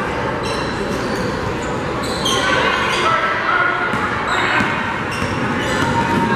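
Basketball bouncing on a hardwood gym floor as players run the court, with sneakers squeaking, busier from about two seconds in, over voices echoing in the gym.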